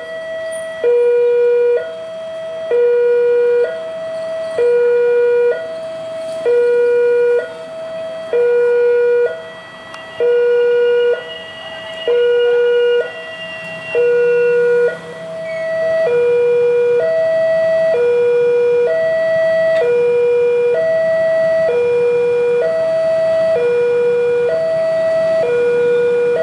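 Railroad level crossing's electronic warning signal sounding its alarm: an alternating two-tone chime, high and low tones of about a second each, warning that a train is approaching. A low rumble builds underneath from about halfway.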